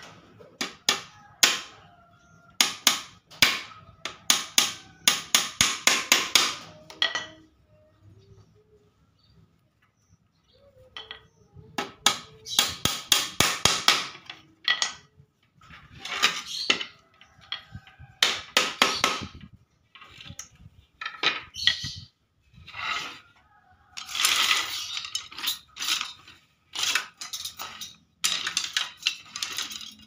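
Small hammer tapping nails into the thin wooden slats of a bird-cage frame, in quick runs of light strikes, several a second, broken by short pauses.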